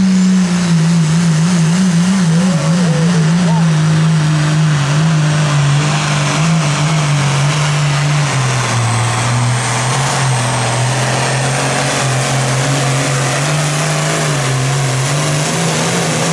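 A John Deere super stock pulling tractor's diesel engine running hard under load as it drags a weight-transfer sled down the track. Its pitch wavers quickly for the first few seconds, then sinks lower over the second half as the sled's weight bogs it down. It climbs briefly again near the end.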